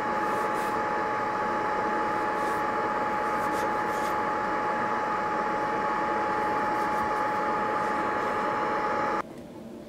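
A machine motor running steadily, giving a constant whine over a hum, which cuts off abruptly near the end.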